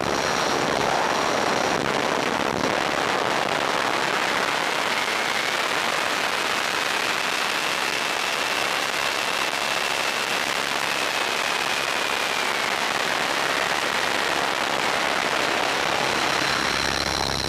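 Onboard sound of a T-Rex 500 electric RC helicopter in a fast descent: a steady rushing noise of air and rotor, with a faint whine that rises in pitch a few seconds in and drops again later.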